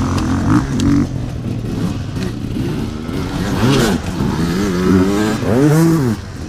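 Enduro dirt bike engine revving, its pitch rising and falling as the throttle is worked, with sharp blips about halfway through and again near the end.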